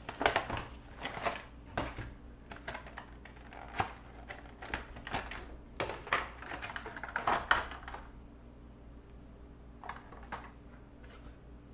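Unboxing noises: a clear plastic blister tray sliding out of a cardboard box, crinkling and clicking as plastic model deck pieces are lifted out of it. The sounds come as irregular rustles and clicks that thin out after about eight seconds.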